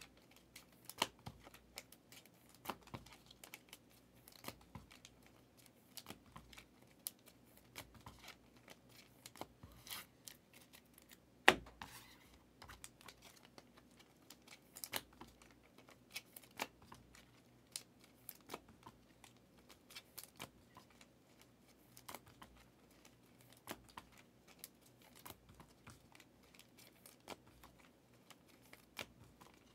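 Trading cards being handled and flipped through one at a time, card stock sliding and clicking against the stack in short irregular ticks. One louder click about eleven seconds in.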